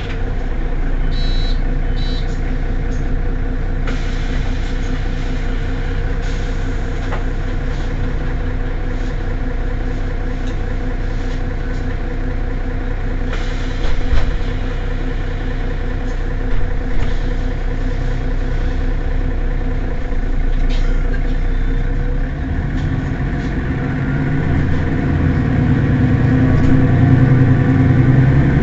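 Mercedes-Benz Citaro city bus engine idling steadily at a standstill, growing louder in the low end near the end. Two short high beeps sound about a second in, and a brief knock comes about halfway through.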